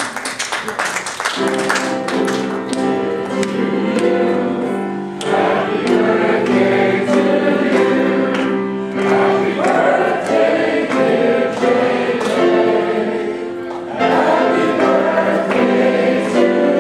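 Congregation singing a hymn together in long held notes, swelling again after brief pauses between phrases.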